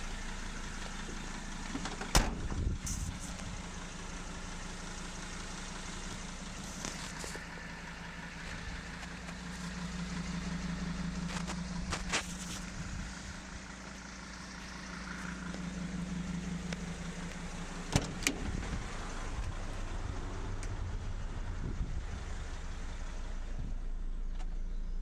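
2004 Mercedes Sprinter 616 CDI's 2.7-litre five-cylinder turbo diesel idling steadily, with a few sharp knocks, loudest about two seconds in and again about eighteen seconds in.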